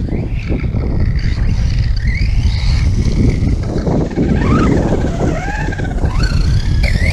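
Redcat Landslide XTE electric RC truck driving hard, its motor and drivetrain whining up and down in pitch with the throttle over a loud rumble of tyres and wind. The owner has said the truck's whine doesn't sound right.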